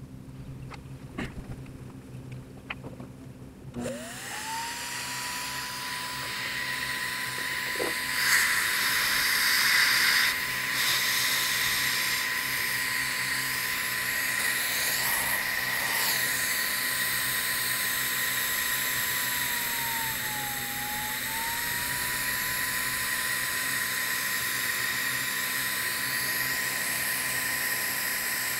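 A few light clicks, then about four seconds in a Wagner Flexio 890 HVLP paint sprayer's turbine switches on and its whine rises quickly to a steady pitch. It runs on with a rushing hiss of air as stain is sprayed, its pitch dipping briefly about two-thirds of the way through.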